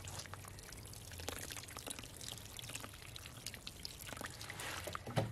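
Water poured down a rubber-coated plywood wall, splashing and trickling steadily with many small spatters into loose, freshly dug soil.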